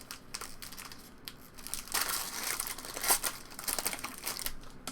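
Crinkling and tearing of trading-card pack wrappers being opened and handled, a run of short rustles that is loudest about two and three seconds in.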